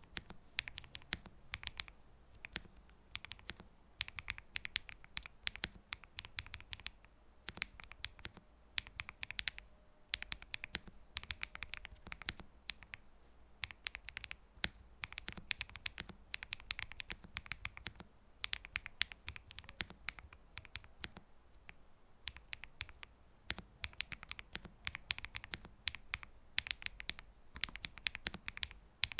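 Typing sound test on a Zuoya GMK67 plastic-case mechanical keyboard with a PC plate, lubed Akko Cream Blue tactile switches, lubed stabilizers and a tape mod: a steady, irregular stream of keystroke clicks.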